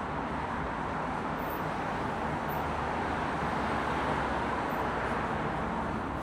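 Steady road traffic noise: a continuous rush of passing cars with no distinct events.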